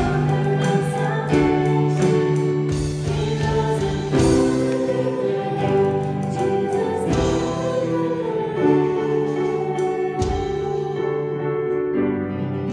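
Live worship band music: women singing over acoustic guitar and keyboard chords, with occasional drum and cymbal hits. The sound thins and fades a little near the end as the chord rings out.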